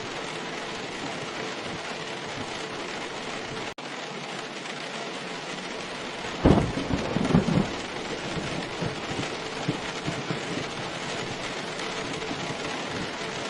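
Steady heavy rain, with a sudden thunderclap about six and a half seconds in that rumbles for about a second. The sound cuts out for an instant just before four seconds in.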